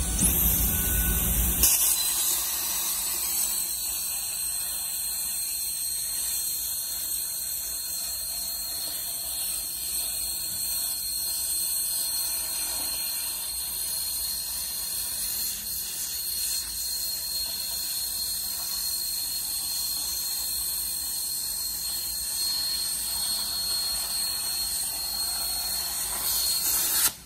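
CNC gantry plasma torch cutting steel plate: a loud, steady high-pitched hiss and squeal of the plasma arc. A low rumble underneath drops away about two seconds in, and the arc stops abruptly near the end.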